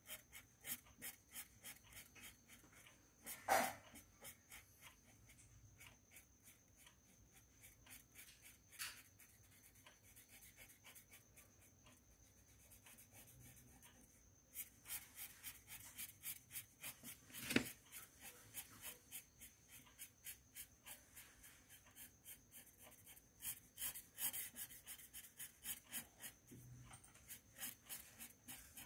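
Red marker scribbling on a colouring-book page in quick back-and-forth strokes, about three a second, fainter for several seconds in the middle. Two louder knocks come through, one about three and a half seconds in and one just past halfway, over a faint steady high whine.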